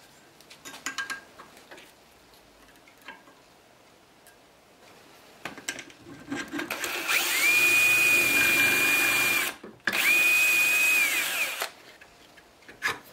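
Cordless drill boring a dowel hole into the end of a wooden board through a dowelling jig's steel guide bushing. The motor runs up to a steady high whine for about two seconds, stops briefly, then runs again for about a second and a half before winding down. A few light clicks and knocks come earlier from the metal jig being handled.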